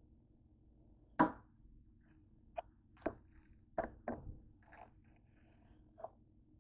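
Kitchen knife knocking on a cutting surface while sandwiches are cut in half: a series of sharp knocks, the loudest about a second in.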